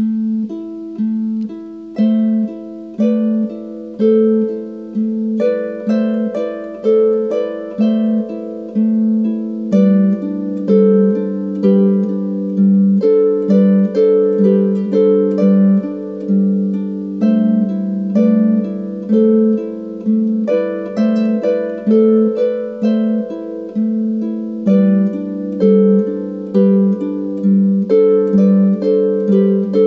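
Harp playing a slow, melodic piece: plucked notes ring and fade over a steady pulse of about one stroke a second.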